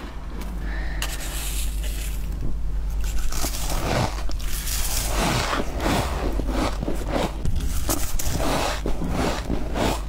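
Close-miked crunching and scraping of flaky freezer frost as it is eaten, in a dense run of irregular crisp crunches that starts sparse and thickens after about three seconds.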